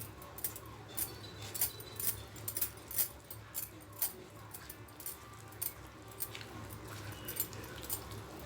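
A spoon stirring a flour-and-water batter in a bowl, clinking lightly against the bowl's side about twice a second.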